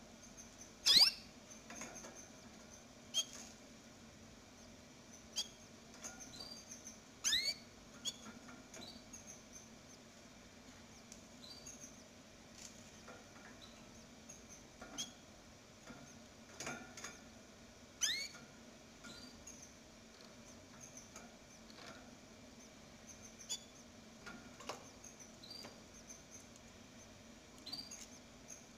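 Canaries peeping and chirping: short thin high squeaks scattered irregularly, with three louder sweeping calls about a second in, at about seven seconds and at about eighteen seconds, over a faint steady low hum.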